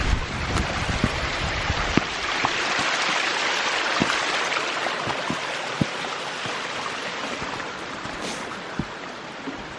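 Rushing water: a steady hiss that builds over the first few seconds and then slowly fades, with a few faint clicks.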